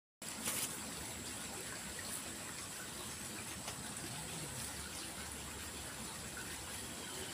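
Steady rushing of a flood-swollen river's flowing water, with a thin, high, steady tone above it and a brief knock about half a second in.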